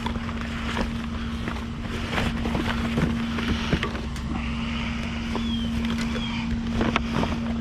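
A vehicle engine running with a steady drone, with scattered light clicks and knocks over it.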